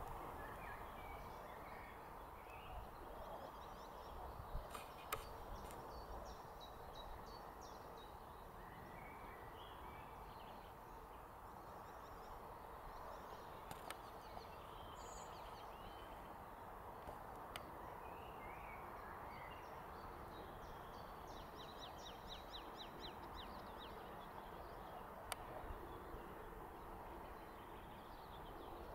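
Faint open-air meadow ambience: a steady hiss with scattered songbird chirps and calls, including a quick run of repeated chirps about two-thirds through. A few faint clicks stand out from the background.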